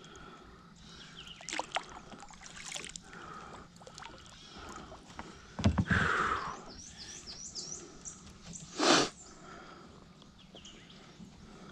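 Kayak paddling: the paddle dipping and splashing, with knocks against the plastic hull. The loudest sounds are a sudden thump with splashing about six seconds in and a short splash near nine seconds.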